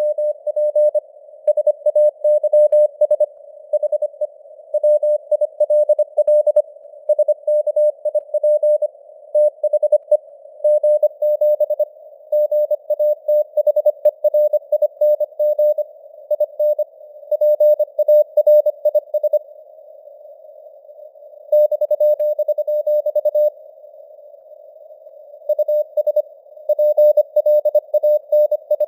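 Morse code (CW) sent at 25 words per minute: a single mid-pitched tone keyed on and off in quick dots and dashes, over a narrow hiss of simulated radio static, with the signal strength fading up and down (QSB). There are a couple of longer pauses between groups near the middle.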